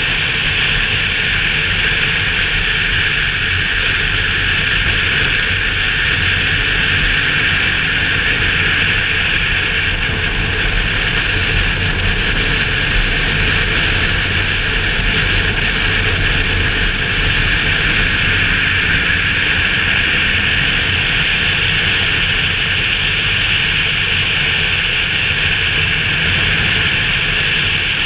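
Steady wind rush and road noise on a helmet-mounted camera while riding a BMW R 1200 GS motorcycle, with the boxer-twin engine running low underneath. The engine pitch rises and falls slightly a couple of times.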